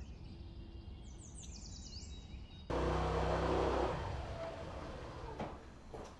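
Outdoor ambience of birds chirping over a low traffic rumble. A little under halfway through it jumps louder, with a motor vehicle's engine hum that fades away, and two faint knocks come near the end.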